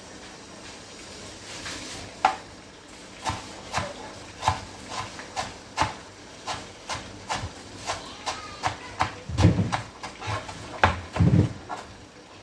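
Kitchen utensils knocking and clicking against cookware, a run of short light taps about two a second, with two heavier thumps near the end.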